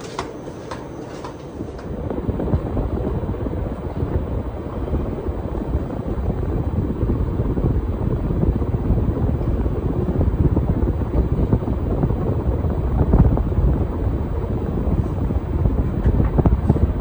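Five-bladed Casablanca Spirit Of Saturn ceiling fan: a few clicks near the start, then the air wash from the spinning blades gets louder about two seconds in and holds as a steady low whoosh and rumble.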